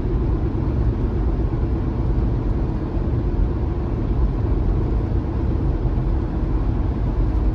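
Steady road and engine rumble inside a moving vehicle, picked up by the dash cam's built-in microphone.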